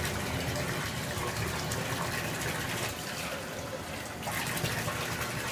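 Bathtub tap running, a steady stream of water pouring into a partly filled tub.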